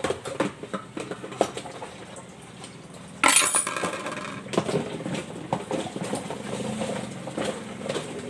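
Dishes and cutlery clinking and knocking together as they are handled during hand dishwashing, with a louder, hissing clatter lasting about half a second about three seconds in.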